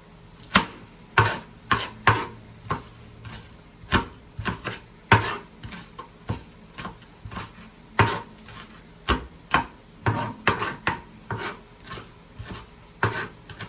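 Kitchen knife cutting a red pepper on a cutting board: sharp, irregular knife strikes about one or two a second.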